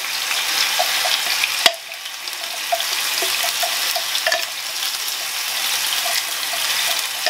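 Chopped onion sizzling in olive oil in a frying pan, a steady hiss, with light ticks and scrapes from a silicone spatula scraping garlic-ginger paste out of a metal cup. One sharp knock comes about one and a half seconds in.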